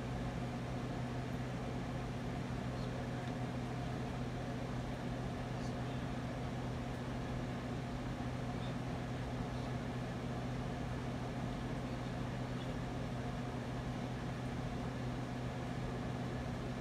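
Steady hiss with a constant low hum underneath, unchanging throughout, with no distinct sounds standing out.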